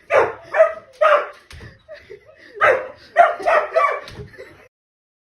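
A dog barking: three barks, then after a short pause a quicker run of four, before the sound cuts off abruptly.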